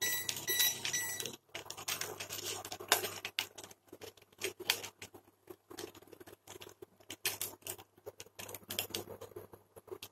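Oil heating in a steel tawa on an induction cooktop, crackling with many small irregular pops as it comes up to frying temperature. In the first second or so a few short electronic beeps, and a low steady hum runs underneath.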